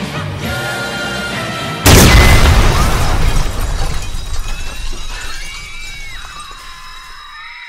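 Film score music, broken about two seconds in by a sudden loud crash with shattering that fades away slowly over the following seconds.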